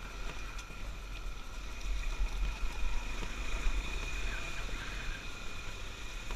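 Honda Tornado single-cylinder dirt bike riding a rocky trail: the engine runs steadily under a low rumble of wind buffeting the camera's microphone, louder from about two seconds in.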